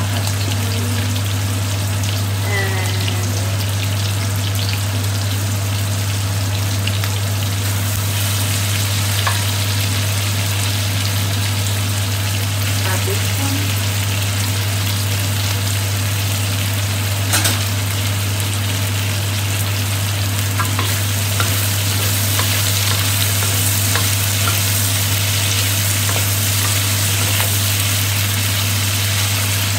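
Onions, tomatoes, chilies and red bell peppers sizzling in hot oil in a stainless steel wok while being stirred with a wooden spatula, with a few sharp knocks of the spatula against the metal. The sizzle grows louder about eight seconds in, over a steady low hum.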